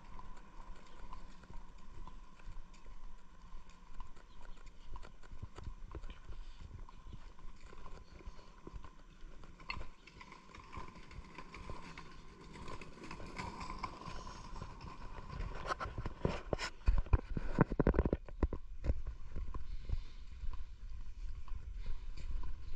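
Footsteps on stone paving at a steady walking pace, each step a short click. About two-thirds of the way through there is a few-second stretch of louder rattling clatter.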